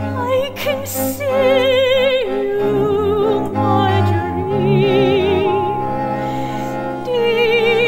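Soprano voice singing long operatic notes with a wide vibrato over low, sustained tones from the accompanying ensemble. The vocal line steps down in pitch about two seconds in and rises again near the end.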